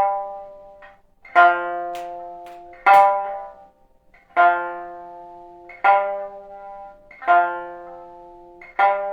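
Background music: a plucked string instrument playing slow single notes or chords, about one every second and a half, each ringing out and fading.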